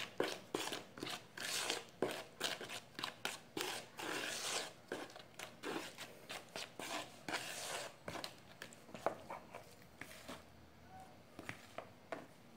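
A fork stirring flour into soft butter dough in a plastic bowl, with quick, uneven scraping strokes against the bowl that thin out over the last few seconds.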